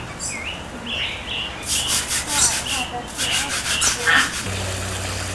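Small parakeets in an aviary giving short rising chirps, followed by a run of harsh, scratchy rasping strokes about a second and a half in. A steady low hum sets in near the end.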